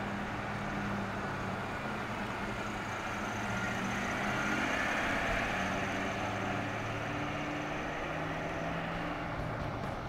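2004 Ford Mustang Mach 1's 4.6-litre V8 running as the car drives past. The engine and exhaust grow louder as it approaches, are loudest about four to five seconds in, then fade as it pulls away.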